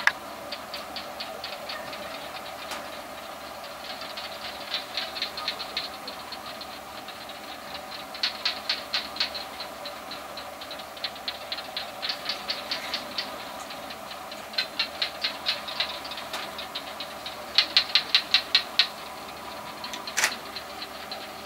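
Repeated short trains of fast, high clicking calls, several clicks a second in bursts of about a second, coming every few seconds, over a steady low hum.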